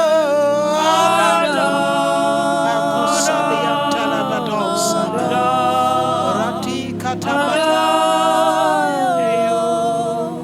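Unaccompanied voices singing a worship song in long, held notes that slide and bend in pitch.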